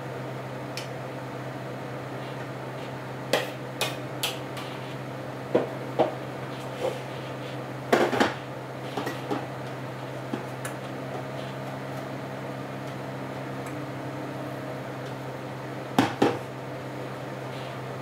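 Kitchen bowl and utensils clinking and knocking on the counter while food is mixed and handled: a scattering of sharp clinks and knocks through the first half, and a couple more near the end, over a steady hum.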